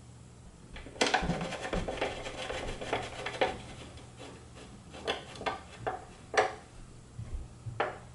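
Small steel screws clinking and a screwdriver clicking and scraping on the metal pull-start housing of an Evinrude 3 hp outboard motor as the housing's screws are put back in. A dense run of clinks about a second in, then single sharp clicks every half second or so.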